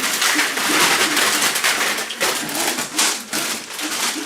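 Loud, continuous rustling and crinkling in quick, irregular strokes, with a faint voice underneath.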